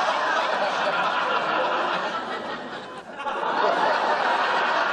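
Sitcom studio audience laughing: a long wave of crowd laughter that dies down about three seconds in, then swells again.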